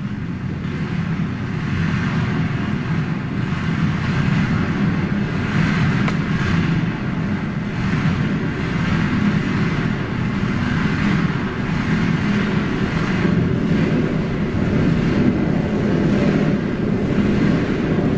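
A long tube swung round and round overhead, giving a continuous low rumbling whoosh that swells with each swing.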